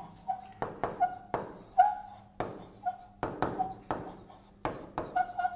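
Stylus tip writing on the glass of an interactive whiteboard screen: a run of sharp taps, roughly two a second, several drawn out into short squeaks as the pen drags across the glass.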